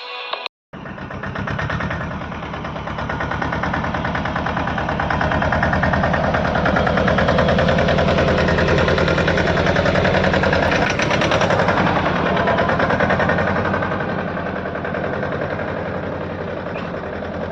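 Mahindra JIVO 24 HP tractor's diesel engine running with a steady, even beat, growing louder for several seconds and then easing off toward the end.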